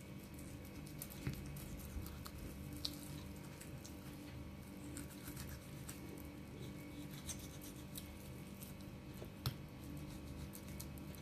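Faint wet squishing of a knife working slowly through raw wild boar haunch meat along the thigh bone, with a few sharp clicks as the blade touches bone or the plastic board, the loudest near the end. A steady low room hum lies under it.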